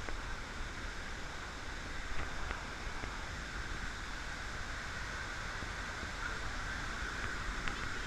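Steady rushing roar of a tall waterfall and the white water below it, with wind buffeting the microphone.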